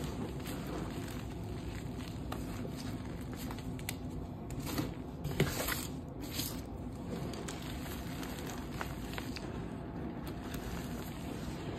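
Gloved hands crushing and crumbling dry, dusty reformed gym chalk: gritty crunching with scattered small snaps. It gets louder for a couple of seconds near the middle.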